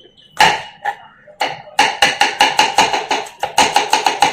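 Kitchen knife chopping a tomato on a cutting board: a few single cuts, then a fast, even run of chops about five a second with one short break.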